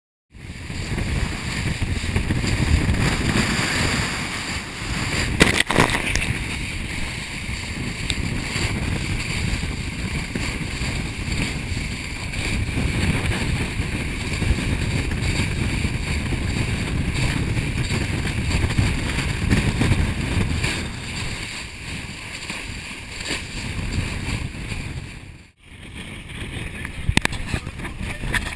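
Wind buffeting a GoPro microphone over the rush of water as a small boat runs through choppy seas, with a sharp knock about five seconds in. The noise drops out for a moment about 25 seconds in.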